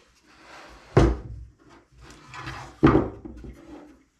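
A laminated particle-board base and a small metal bracket being handled and shifted on a wooden tabletop: two sharp wooden knocks, about a second in and near three seconds, with rubbing and scraping between them.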